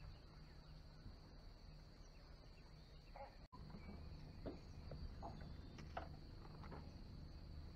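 Faint, steady high-pitched insect chorus in swamp ambience, with a few soft clicks and taps about halfway through.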